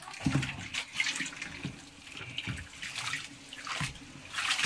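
A suction hose slurping grape mash out of a barrel, with irregular gurgling gulps of liquid and air, as the grapes are drawn up for the tsipouro still.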